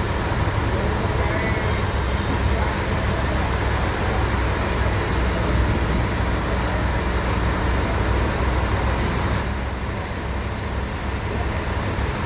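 Sawmill bandsaw machinery running with a steady low hum. A loud, high hiss joins it about a second and a half in and cuts off sharply after about six seconds.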